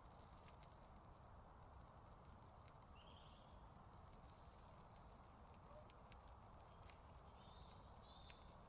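Near silence: faint outdoor ambience with scattered faint ticks and a few short, faint chirps.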